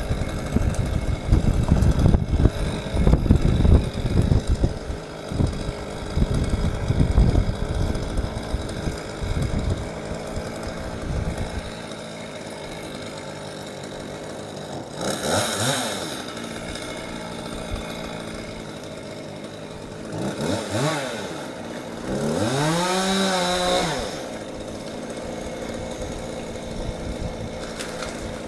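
Chainsaw up in the tree, idling and revved three times, each rev rising and falling in pitch, the last held for about two seconds. Heavy, irregular low rumbling fills roughly the first ten seconds.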